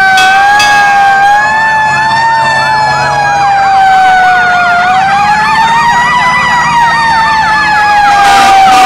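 Fire truck sirens wailing: one siren rises and falls slowly and steadily. From about a second in, a second siren overlaps it, sweeping up and down in a fast yelp.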